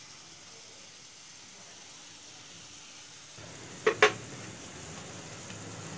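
Shredded cabbage and mixed vegetables sizzling in hot oil in a pan, a steady hiss that grows a little louder about three and a half seconds in. Two sharp knocks come about four seconds in.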